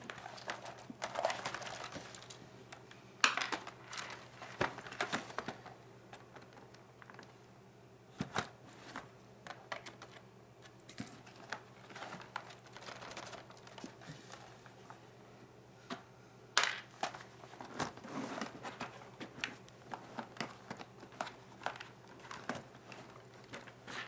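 Plastic casing of a Toshiba Satellite laptop being handled: scattered light clicks, taps and knocks as it is turned over and its lid opened, with bursts of rustling. The loudest are sharp knocks about 3 seconds in and again about 16 seconds in.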